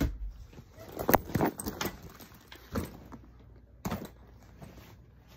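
Handling noise from a hand-held phone: about five light clicks and knocks, scattered and irregular, with faint rustling between them.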